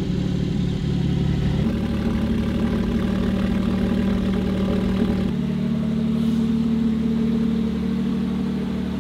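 Porsche 718 Cayman GT4's 4.0-litre flat-six idling steadily just after starting. The idle note shifts slightly twice as it settles.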